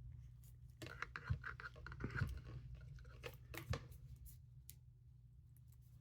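Blue protective plastic film being peeled and crinkled off a watch's metal deployment clasp, with a few sharp clicks and scratches, over a low steady hum.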